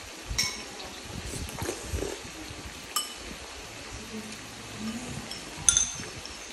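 Metal utensils clinking against dishes three times, over a steady low hiss from the pan cooking on the portable gas stove.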